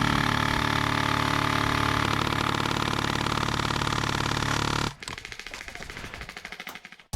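A loud, steady mechanical buzz that stops abruptly about five seconds in, leaving fainter, rapid ticking.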